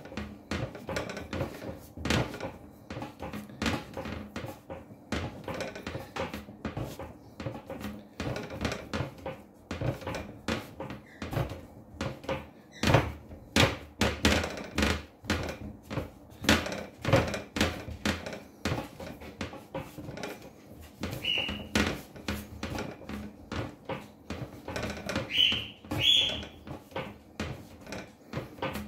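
Pizza dough being kneaded by hand on a glass-topped table: irregular dull thumps and rubbing as the dough is pushed and folded, worked hard to develop the gluten. A few short high squeaks come in the second half.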